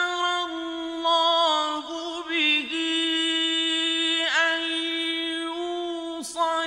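A male reciter chanting the Quran in the melodic mujawwad style, one voice drawing out long held notes on a steady pitch with quick ornamental turns between them.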